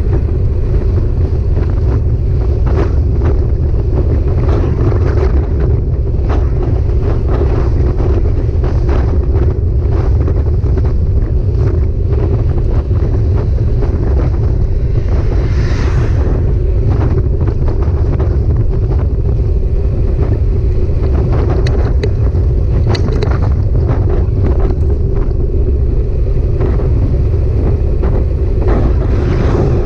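Heavy wind rumble on the microphone of a camera riding on a moving bike, with road noise and scattered short knocks from bumps in the ride.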